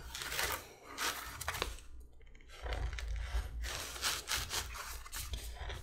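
Round knife slicing through 4–5 oz holster leather: a series of short scraping cuts, with a longer drawn cut in the middle, cutting the corners out from punched holes.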